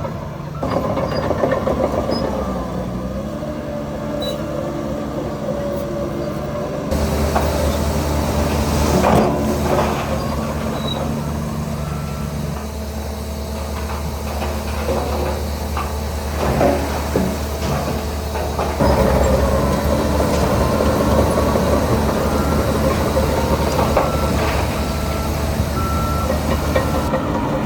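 Heavy diesel earthmoving machinery running under load, its engine note changing pitch twice, with several metallic clanks and a few short repeated beeps in the later part.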